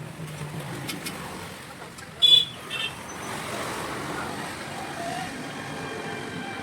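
Two short high vehicle-horn toots about two seconds in, the first louder, over steady traffic noise.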